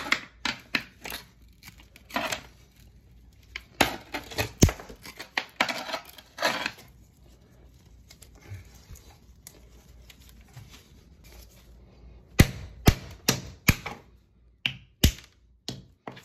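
Hand tools chipping and scraping pieces of a broken PVC toilet flange and crumbled mortar out of the floor drain opening: irregular clatter and scraping, a quieter stretch midway, then a run of sharp taps near the end.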